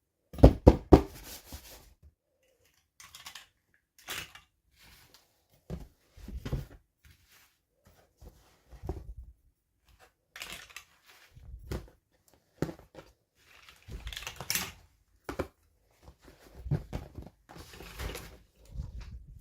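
Toy packaging being handled and opened: intermittent clicks, taps and short tearing or rustling bursts, with a cluster of sharp clicks about half a second in.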